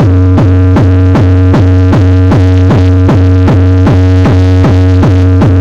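A very loud electronic bass track blasted through a Santa Fe's car sound system for a sound-pressure measurement. A steady deep bass tone is broken by a falling thump about three times a second.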